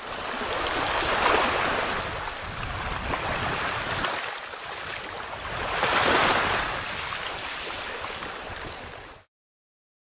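Surf: waves washing in, swelling twice, then cutting off abruptly about nine seconds in.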